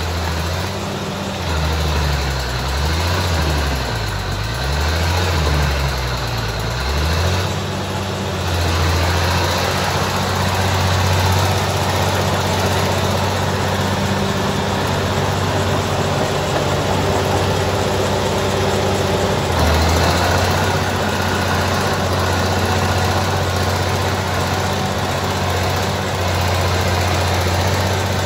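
Crawler bulldozer's diesel engine working, its speed rising and falling several times in the first several seconds, then running steadily.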